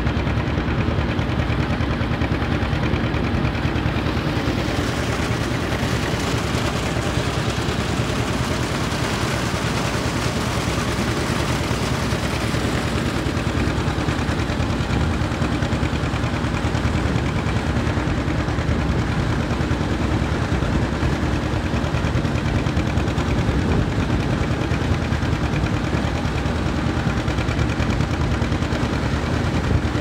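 Old farm tractor engine running steadily under load, its exhaust giving a rapid, even popping.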